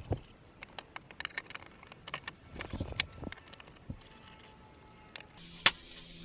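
Light, irregular clicks and clatter of small hard objects being handled, like keys or small metal parts jangling. About five seconds in it gives way to a steady hiss with a few low held tones.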